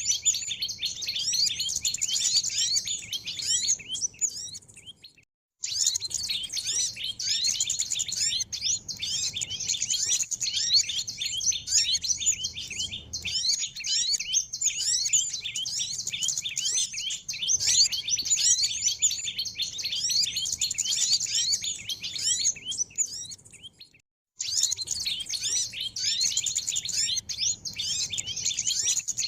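Bird-lure recording of many small songbirds chirping and twittering in a dense, busy, high-pitched chorus. It fades out and restarts abruptly twice, about five seconds and about twenty-four seconds in.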